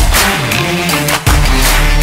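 Background music: a loud beat with strong hits a little over a second apart and a deep bass that swoops down and back up in pitch.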